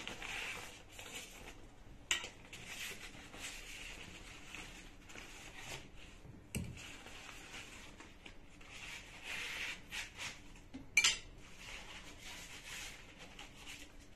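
Sections of a carbon travel fishing rod being taken out of their case and handled: rustling, with a few sharp clicks and knocks as the hard pieces touch.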